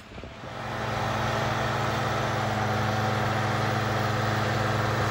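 Small railway track tamper's engine running steadily, with a constant low hum, coming in about half a second in.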